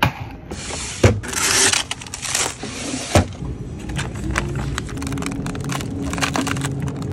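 Handling of packaged goods: plastic packaging rustling and scraping with small clicks, and sharp knocks about one second and three seconds in. A low steady hum comes in from about four seconds on.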